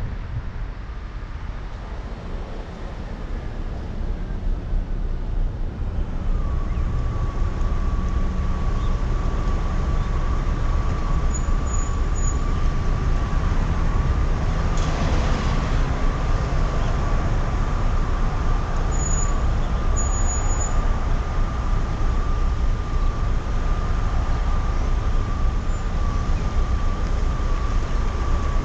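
2004 Ford Focus driving, a steady low rumble of engine and road noise that grows louder over the first few seconds, with a steady high-pitched whine that sets in about six seconds in and holds. The owner believes something in the clutch or transmission was badly worn by revving to 6,000 rpm.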